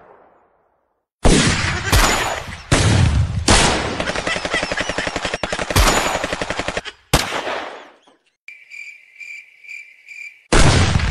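Gunshot sound effects: single loud shots, then a fast machine-gun rattle for about three seconds and another shot. After that comes a run of about five short high electronic beeps, then a loud boom near the end.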